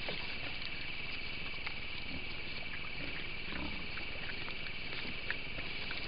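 A feral hog grunting and snuffling close to the trail camera as it roots in the grass, with a rough low grunt about three and a half seconds in. Behind it runs a steady high-pitched chorus of night insects, sprinkled with short ticks.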